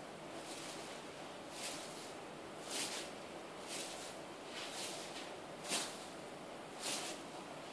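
Soft, regular breathing: a short airy puff about once a second over a faint steady hiss.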